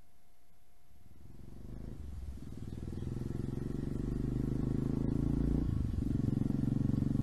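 Honda FMX 650's single-cylinder four-stroke engine, on open Giannelli exhausts with the dB-killers removed, approaching from a distance: its low, pulsing exhaust note sets in about a second and a half in and grows steadily louder, with a brief break about six seconds in.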